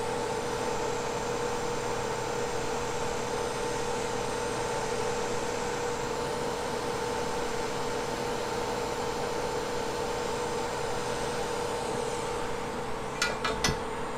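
Hot air rework station blowing steadily, a fan whir with a steady two-tone hum, as it heats a chip's solder joints on a flash drive circuit board. A few light clicks come near the end.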